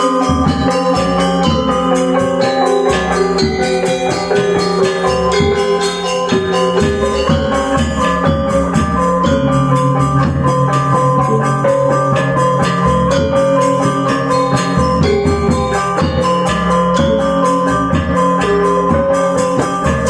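Balinese gamelan gong kebyar ensemble playing: bronze metallophones struck with mallets in a dense, fast rhythm over drums, with a long low tone sustained through the middle.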